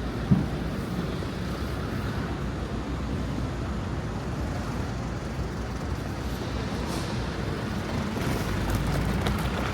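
City street traffic: a steady low rumble of passing road vehicles, with one short, sharp loud sound about a third of a second in.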